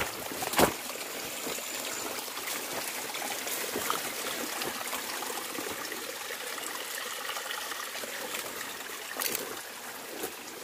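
Steady rush of running water from a jungle stream, with rustles and knocks from the phone rubbing against clothing and brush; one sharp knock about half a second in.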